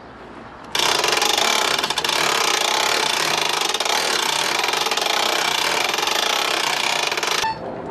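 A handheld power tool runs loudly and steadily for about seven seconds. It cuts in sharply about a second in and stops abruptly near the end.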